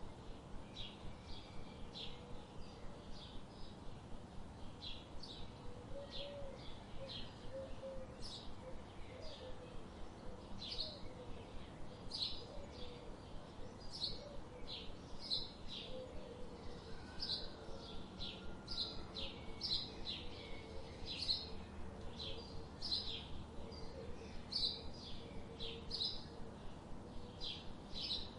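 Birds chirping: short, high chirps repeating two or three times a second, with a fainter, lower wavering call underneath from about six seconds in.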